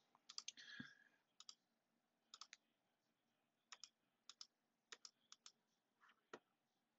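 Faint computer mouse clicks, most of them quick press-and-release pairs, coming at irregular intervals about a second apart.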